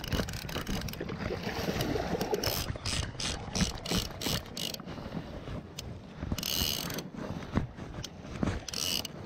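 Salmon fly reel's click-pawl drag ratcheting in a quick run of clicks, then two short buzzes, as a salmon is played on the line. Water or wind rumbles underneath.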